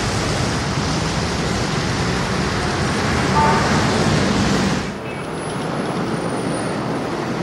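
Street traffic noise with a short car horn toot about three and a half seconds in. The traffic noise drops abruptly about five seconds in to a quieter background.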